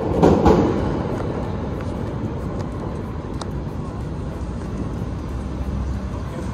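Steady low rumble of city street traffic, louder for a moment at the start.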